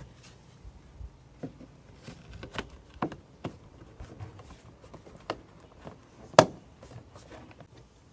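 Scattered small clicks and knocks of parts being handled and fitted back onto a car door, with one sharper knock about six seconds in.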